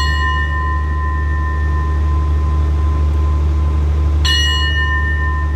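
Railway station bell ringing on in two clear tones from a strike just before, then struck again about four seconds in, over a steady low rumble. At Thai railway stations this bell is rung to signal a train's departure.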